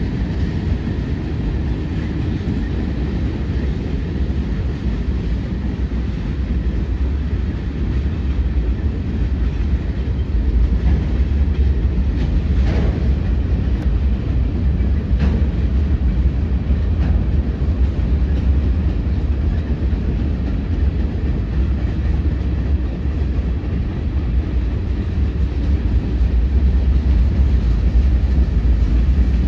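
CSX freight train cars rolling past: a steady low rumble of wheels on rail, with a couple of faint knocks about 13 and 15 seconds in.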